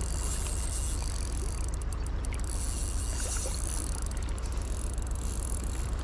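Steady rush of flowing creek water with a low rumble, unchanging throughout.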